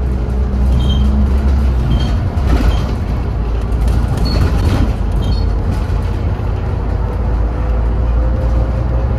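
Scania N230UD double-decker bus under way, heard from inside the upper deck: a steady low diesel engine drone with road noise, and a few faint short squeaks in the first half. The engine note rises slightly over the last few seconds.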